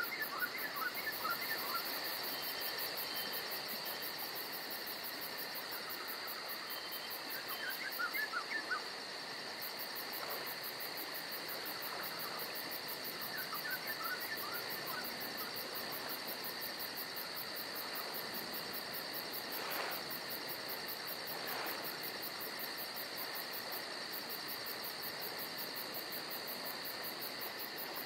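Steady chorus of insects: a constant high buzz with a very fast, even pulsing trill above it. Short bursts of bird chirps come three times: at the start, about 8 seconds in, and about 13 seconds in.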